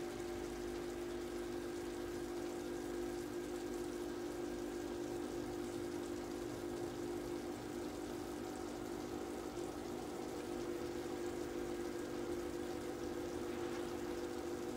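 Pans of tomato sauce with crabs and prawns and of fish and potato stock simmering gently over low heat, a steady liquid bubbling under a constant low hum.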